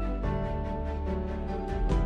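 Background music: held instrumental chords with a bass line over a steady rhythmic pulse.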